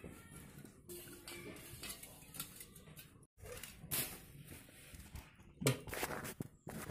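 Metal kitchenware (a steel colander and an aluminium pot) being handled and set down on a hard floor: scattered clinks and knocks, the loudest a few sharp knocks a little before the end.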